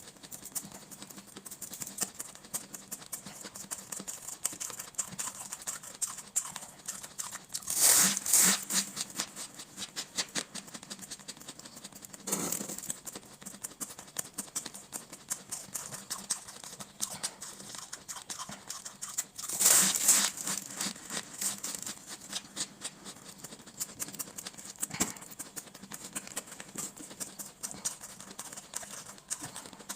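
Close-up chewing of shaved ice: steady, rapid crunching and crackling, with louder crunches about eight, twelve and twenty seconds in.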